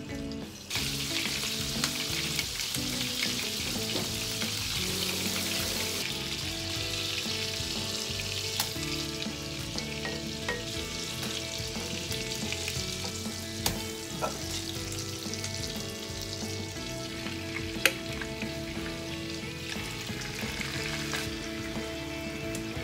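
Hamburger patties sizzling steadily in hot oil in a frying pan, with a few sharp taps of a wooden spatula against the pan as they are turned.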